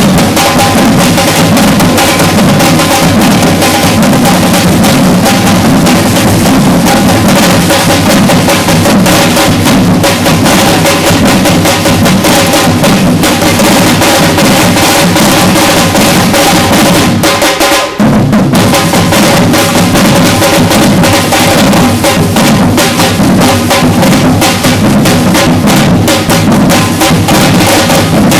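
Batucada percussion ensemble playing a loud, dense drum rhythm that stops for a moment about 18 seconds in and then starts again.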